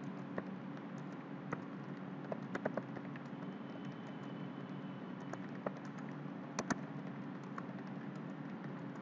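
Computer keyboard typing: scattered, irregular keystrokes over a steady low hum.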